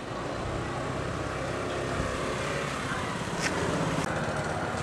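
Steady outdoor background rumble with no clear single source, and a short sharp click about three and a half seconds in.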